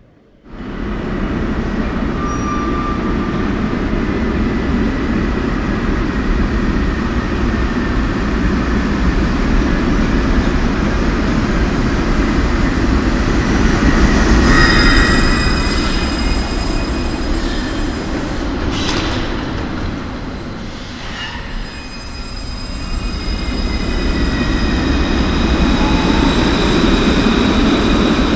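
Alstom Citadis 302 light-rail tram running through an underground station: a loud, steady rumble of wheels on rail under the high whine of its traction motors. There are a few brief squeals around the middle, and the motor whine glides in pitch in the last few seconds.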